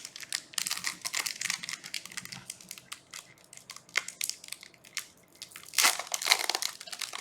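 Foil booster-pack wrapper of a trading card game being crinkled and torn open by hand, with irregular crackles and a louder burst of crinkling about six seconds in.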